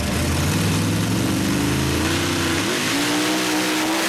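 Supercharged engine of a drag-racing truck at full throttle, its pitch climbing as it accelerates, dipping once about two and a half seconds in at a gear change, then climbing again.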